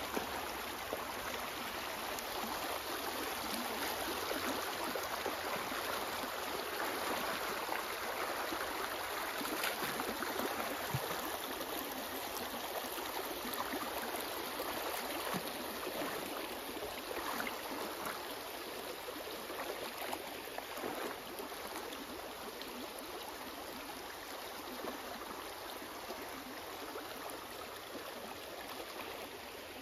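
Shallow stream running steadily over rocks, with light splashing now and then as a corgi wades through it.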